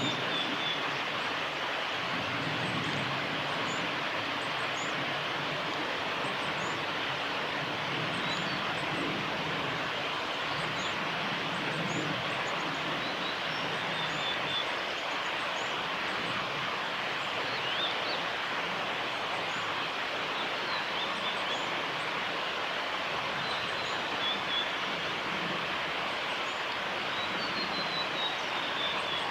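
Male blue-and-white flycatcher singing faintly: short high whistled notes every few seconds and a falling string of notes near the end. Over it runs a loud, steady rushing noise.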